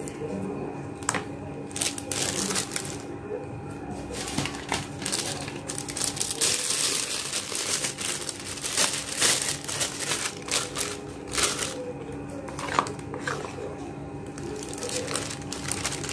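Thin clear plastic bag crinkling and rustling as it is held and filled by spoon with a wet bait mix, busiest in the middle, with a few sharp clicks of the metal spoon against the bag and bowl.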